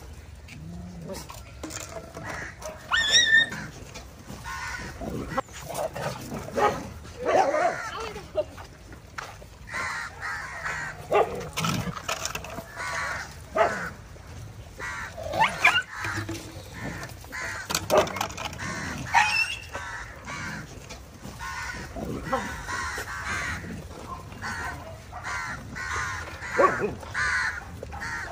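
Animal calls in many short, separate bursts throughout, sounding like birds cawing, with a dog now and then and people's voices in the background.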